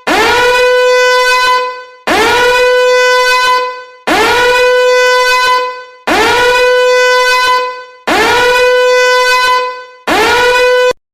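A loud horn blast on one steady, buzzy note, sounded over and over about every two seconds, six times, each held about a second and a half before dying away; the last blast is cut off short.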